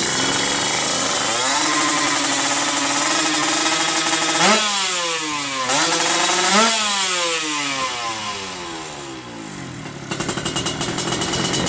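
Kawasaki Ninja drag bike's two-stroke single with an expansion-chamber exhaust, revved while standing. From a rough idle it rises and holds higher revs, gives two sharp throttle blips about four and a half and six and a half seconds in, then winds down over several seconds and drops back to a choppy, rattling idle near the end.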